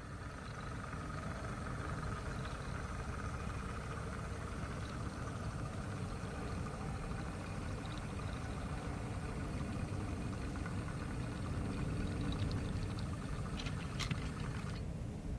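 Steady rumbling noise of a camera riding on a moving model train: wheels rolling on the track and vibration carried through the wagon. A few sharp clicks come near the end.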